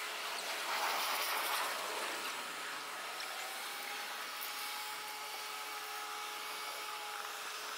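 Steady hum and hiss of airport ground equipment with a motor whine as a catering truck's hydraulic scissor lift raises its box body toward the airliner's door; a second higher whine joins about three seconds in and holds steady.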